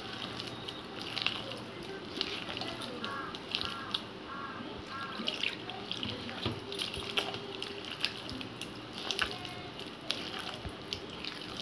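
A hand squelching and slapping through thick, wet palm-pulp batter in a stainless steel bowl, with scattered sharp clicks, as water is worked in to bring it to a pakora-batter consistency.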